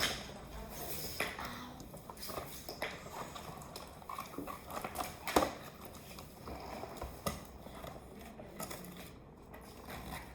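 Irregular light clicks and rustles of a toy and its packaging being handled while it is unboxed, with a sharper knock about five seconds in.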